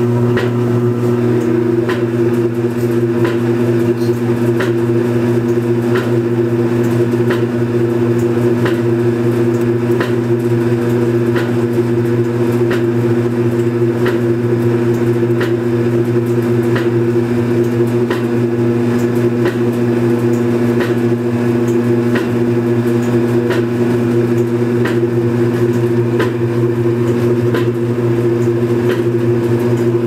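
Kenmore Series 80 belt-driven top-load washing machine running its spin cycle: a steady motor and drive hum with a knock repeating about once a second. The knocking is the fault the owner is trying to diagnose, which comes with water leaking during the spin.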